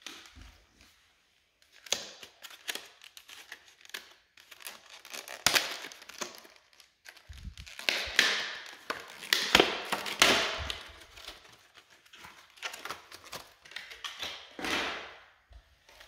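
Packaging of a beard trimmer being handled, crinkling and rustling in irregular bursts with a few sharp knocks, busiest in the middle.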